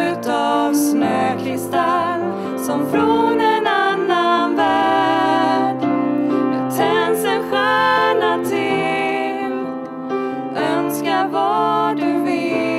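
Two women singing a Swedish Christmas song, with piano accompaniment; the held notes carry a clear vibrato.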